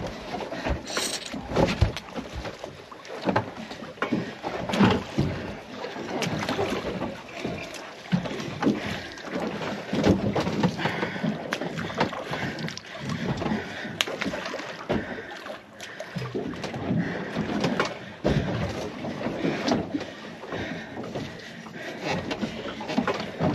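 Water sloshing and slapping against a boat's hull, with irregular knocks and thumps as a large shark is hauled by rope over the side of the boat.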